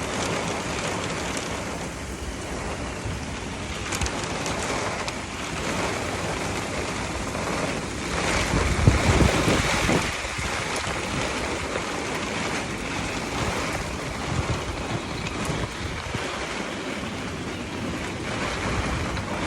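Thunderstorm wind and rain, a steady noise with wind buffeting the microphone, swelling louder for a couple of seconds about halfway through.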